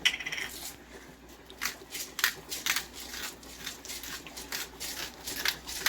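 Black pepper being dispensed: a run of short, gritty scratching strokes at an uneven pace, with a brief high-pitched squeak at the very start.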